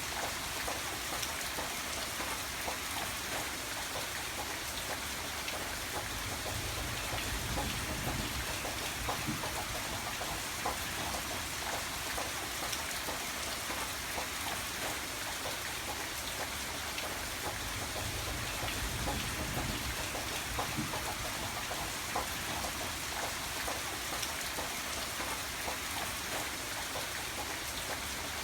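Steady rain falling on a surface, with many individual drops ticking through the hiss. A low rumble swells briefly twice, about eight and twenty seconds in.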